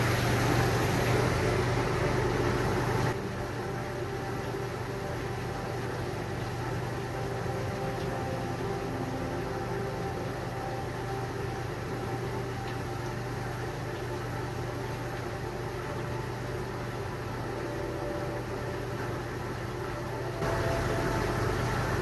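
Jackson commercial dishwasher running its wash cycle: a steady motor hum with an even wash noise. It gets a little quieter about three seconds in and louder again near the end.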